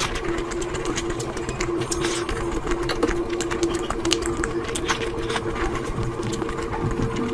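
Close-up eating sounds: chewing and mouth clicks and smacks, many short ones at an uneven pace, over a steady machine hum.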